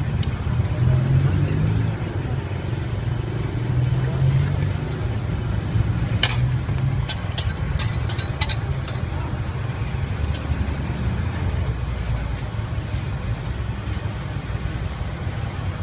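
A steady low rumble, with a quick run of sharp metal clicks from about six to eight and a half seconds in as metal spatulas and tongs are set down on the machine's steel freezing pan.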